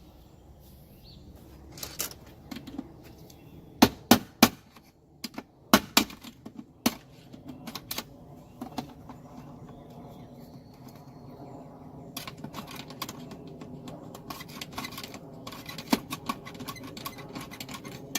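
Irregular sharp clicks and knocks of hand tools working a lock nut off an electrical box. Several loud knocks come a few seconds in, then quicker, lighter clicking near the end.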